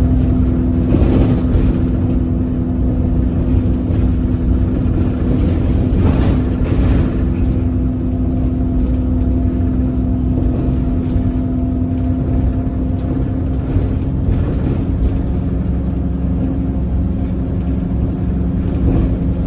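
Alexander Dennis Enviro 300 bus engine running, a steady droning tone held over a low rumble, with brief louder surges about a second in and again around six seconds. The uploader calls it a weird engine sound.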